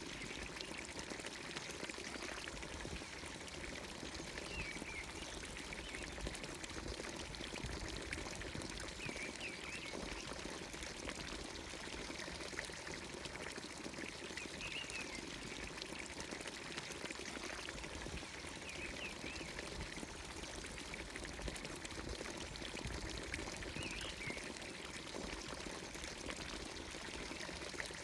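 Water pouring steadily from a village fountain's spout into its stone trough, with a short bird call repeating about every five seconds.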